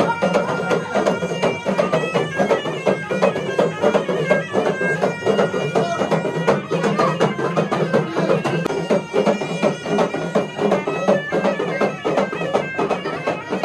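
Folk music: a reedy wind instrument plays a fast, stepping melody over steady hand-drum beats.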